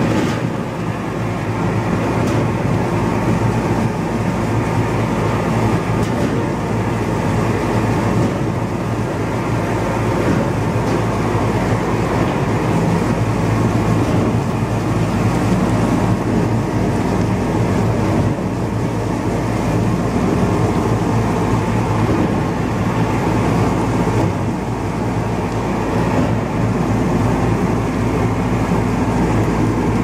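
LXTP 5000 spiral-brush potato peeling and washing machine running: a steady low mechanical hum under the continuous churn of potatoes tumbling against the brushes and the hiss of the spray jets.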